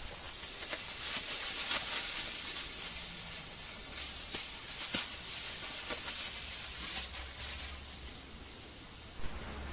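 Nico Eisvögel ground spinners hissing as they burn, with a few sharp pops and crackles. The hiss fades about seven seconds in.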